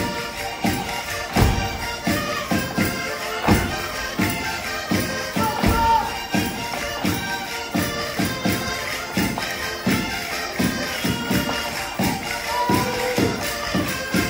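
Portuguese folk music for a vira dance: a quick tune over a steady, strongly accented beat of percussion.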